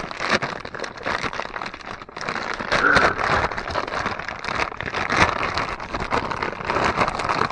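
Clear plastic bag crinkling and crackling as it is handled and opened by hand, a steady dense rustle.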